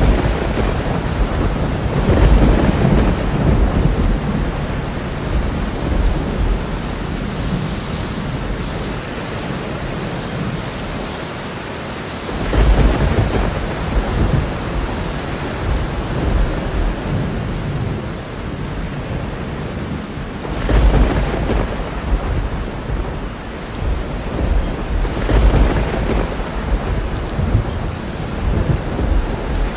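Thunderstorm: steady heavy rain with repeated rolls of deep rumbling thunder, the strongest starting at the very beginning and about 2, 12, 21 and 25 seconds in.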